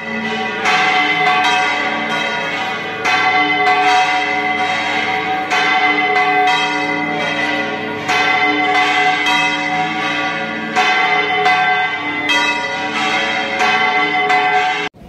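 Church bells pealing, with repeated strikes whose ringing tones overlap, cutting off suddenly near the end.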